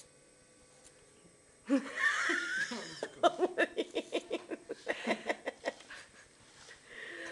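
A person laughing: a high, sliding squeal starting a little under two seconds in, then a quick run of short, even 'ha-ha' bursts, about six a second, that stops a few seconds later.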